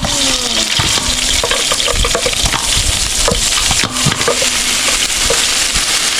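Chicken pieces frying in hot oil in a pan over a gas burner: a steady loud sizzle with scattered small pops and clicks.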